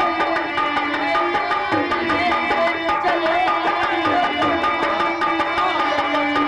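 Live nautanki stage music: hand drums keep a quick, steady rhythm under held tones and a wavering melody line.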